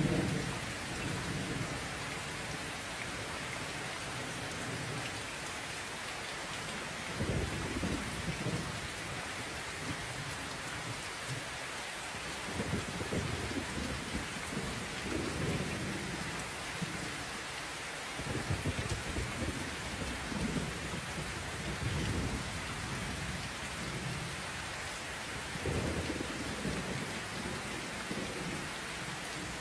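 Steady rain falling, with low rumbles of thunder swelling and fading several times.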